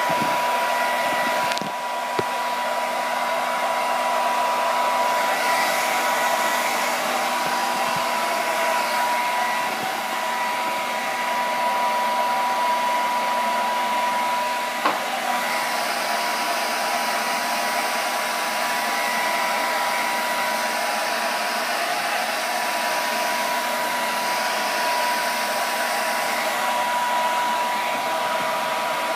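Hand-held hair dryer running steadily, blowing air onto fresh paint, with a steady high whine from its motor. A small tap about fifteen seconds in.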